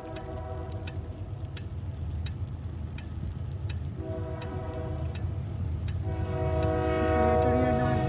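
Multi-chime horn of a Union Pacific AC44CW freight locomotive sounding for a grade crossing. One blast ends about half a second in, a second sounds around four seconds in, and a longer, louder blast starts about six seconds in. A steady low rumble of the moving vehicle carrying the recorder runs underneath.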